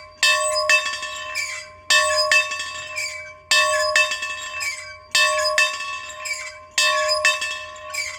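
A bell being rung, its clapper striking twice per swing. Each pair of strokes comes about every second and a half, five pairs in all, and each stroke rings on and fades before the next.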